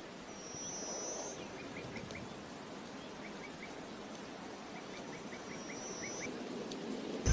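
Small birds calling over a faint outdoor background: a thin, high, held whistle twice, near the start and again about two-thirds through, and several quick runs of three or four short chirps.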